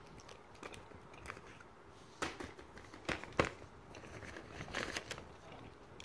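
Handling noises: light rustles and a few sharp taps as fidget toys and a paper sheet are moved about by hand, with the loudest taps about three seconds in.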